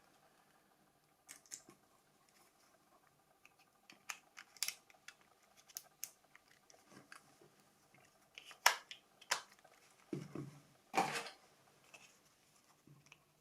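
Scattered small clicks and taps of a plastic mobile phone's body shell being handled and pressed together, with a few louder snaps about nine and eleven seconds in.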